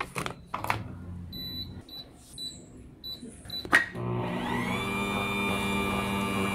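Clicks as a plug goes into a power strip, then a series of short high beeps from the Lahome bear dough mixer's control panel, a sharp click, and about four seconds in the mixer's motor starting up: its tone rises briefly, then runs steadily.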